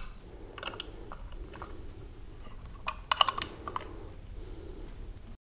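Allen key turning in the barrel-clamp screws of an ATA Arms ASR rifle chassis, tightening them to lock the barrel in place: faint scattered metal clicks and scrapes, with a quick cluster of clicks about three seconds in. The sound cuts off abruptly just before the end.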